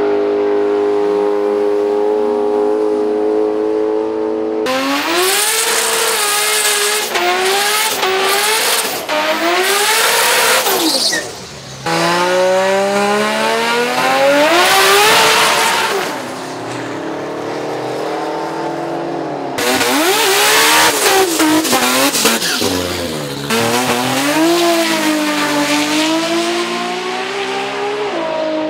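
Modified drag-racing street car engines revving up and down in bursts at the start line, then a hard launch with the engine pitch climbing steadily as a car accelerates away down the strip; this is repeated for several cars in turn. A little tyre squeal is mixed in.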